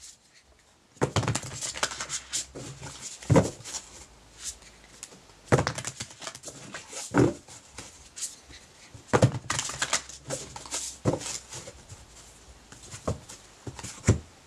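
A deck of oracle cards being shuffled by hand, heard as irregular bursts of rustling and flicking with several louder knocks.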